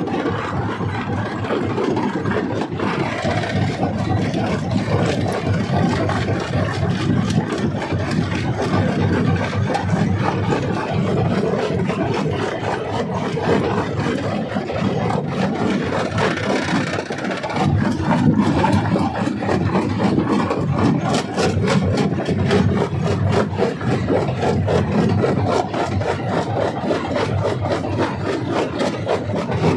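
Stone crusher machine running and crushing rock: a continuous grinding rumble with many sharp cracks and clatters of stone breaking, coming thickest in the second half.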